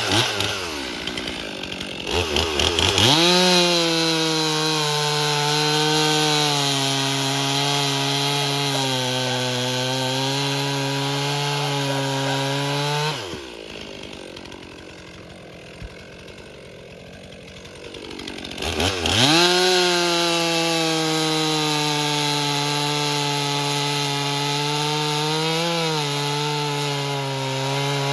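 Stihl MS 362 C two-stroke chainsaw revving up and cutting through a log under load for about ten seconds, dropping back to idle near the middle, then revving again and starting a second cut that runs on.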